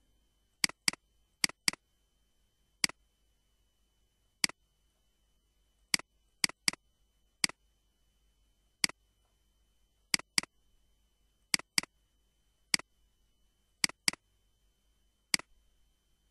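Computer mouse button clicking: about nineteen sharp clicks, singly and in quick pairs, at irregular gaps of a fraction of a second to about a second and a half.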